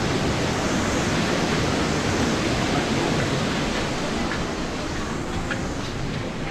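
Steady rushing noise filling the spa room, easing slightly near the end, with a few faint taps in the last couple of seconds.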